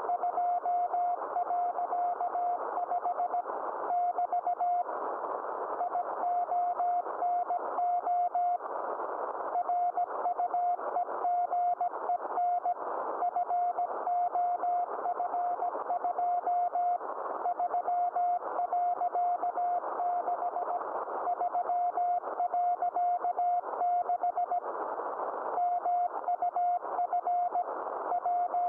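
Morse code (CW) from the DK0WCY aurora beacon, received on a Yaesu FT-991A shortwave transceiver: a single tone of about 700 Hz keyed in dots and dashes over a hiss of band noise, with a few short pauses between groups. It is the beacon sending its bulletin of geomagnetic and ionospheric data.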